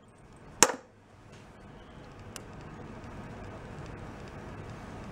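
Screwdriver knocking sharply once against the metal carburetor of a VW Beetle engine, working the carburetor top loose, with a fainter click a couple of seconds later.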